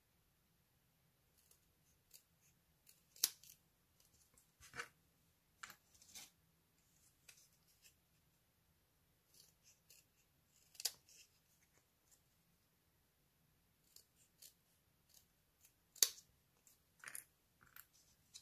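Small scissors snipping thin grey cardboard, cutting a small square into triangles: a scattered series of quiet, sharp snips, with louder ones about three, eleven and sixteen seconds in.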